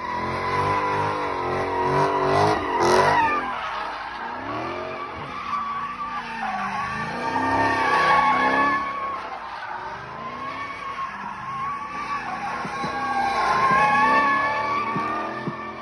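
Dodge Challenger doing donuts: its V8 revs rise and fall under a steady squeal of spinning rear tyres. It swells louder several times as the car circles.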